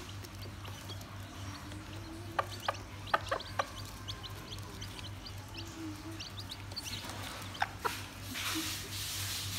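Newly hatched chicks peeping with many short, high cheeps while a mother hen clucks softly. A few sharp taps come in a quick cluster about two to four seconds in and twice more near the end, as the hen pecks at the cardboard box floor.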